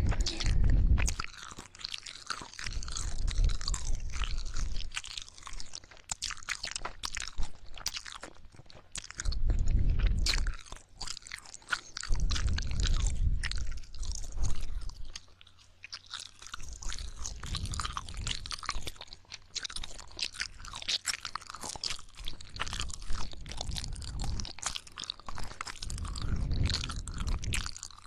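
Ear-licking ASMR mouth sounds: a continuous stream of quick, wet tongue and lip clicks close to the microphone, with dull low swells every few seconds.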